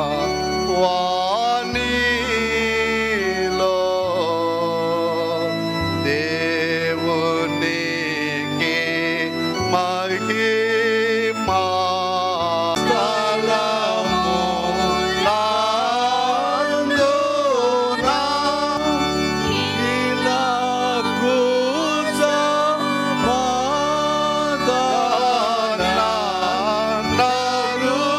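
Devotional singing with a sustained, reedy keyboard accompaniment holding chords and bass notes under the voice.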